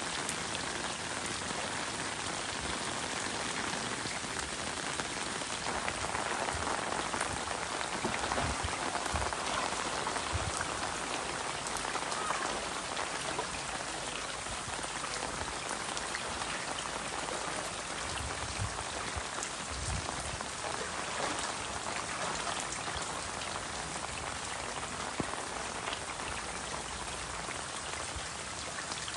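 Heavy rain pouring steadily, a dense patter of drops, swelling a little louder for several seconds in the first half. A few low thuds come through now and then.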